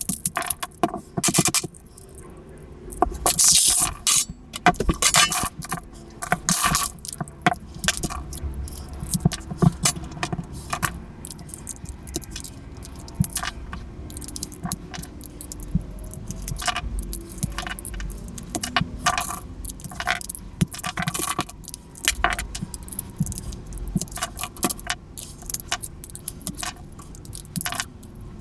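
Plastic pieces of a Rubik's cube clicking, snapping and scraping against each other as the cube is pried apart and its pieces handled, in many irregular sharp clicks with a few longer scrapes.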